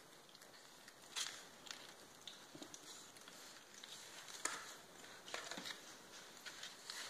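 Faint, irregular scuffing, scratching and paper crinkling from two Labrador puppies wrestling in a cardboard box lined with newspaper: paws scrabbling on cardboard and newspaper. The louder knocks come about a second in and again about four and a half seconds in.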